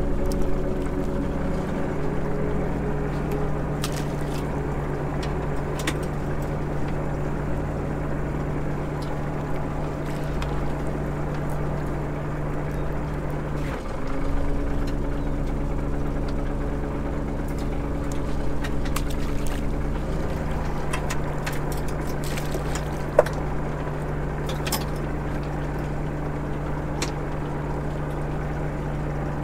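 Fishing boat's engine running steadily, its note shifting slightly a couple of times, with a few light knocks and clicks.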